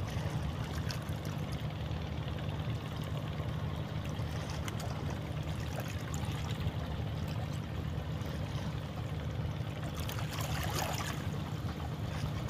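Harbour water lapping and sloshing over a steady low drone from a boat engine.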